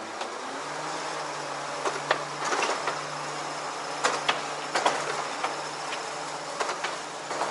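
Truck-mounted ladder lift raising its loaded platform up the ladder rails: a steady hum from the lift drive sets in about a second in, with irregular metallic clanks and rattles as the carriage climbs.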